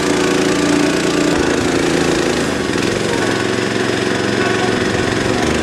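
An engine running steadily, with an even mechanical hum throughout.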